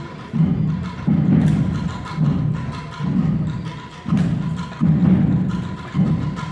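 Procession drums beating a slow, steady march: deep drum strokes about once a second, with crisp higher strikes between them.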